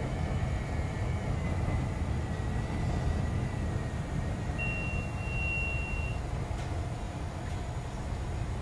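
CTA Brown Line elevated train running along the tracks, a steady low rumble, with a thin high steady tone that lasts about a second and a half near the middle.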